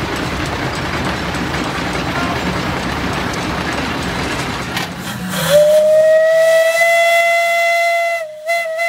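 A steam whistle blows one long, loud, steady note that starts about halfway through with a slight upward slide, then breaks off twice briefly near the end. It sounds from a vertical-boiler steam hoist engine. Before the whistle there is a steady rumble and hiss of running steam machinery.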